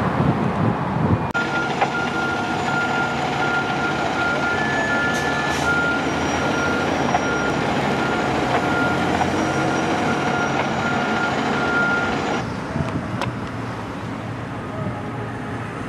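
Fire engine's diesel engine running as it pulls out of the station, with an electronic warning beeper sounding over it again and again; about twelve seconds in it gives way to quieter, steady vehicle noise.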